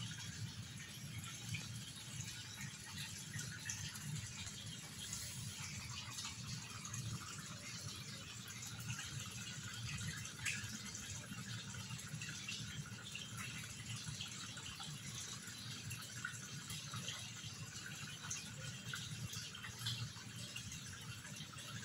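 Continuous light splashing and crackling of water in a concrete fish pond, with a low steady rumble beneath.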